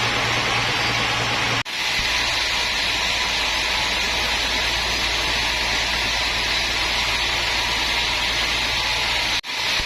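Woodworking machinery running steadily with a dense hiss and a low hum, cut off briefly twice.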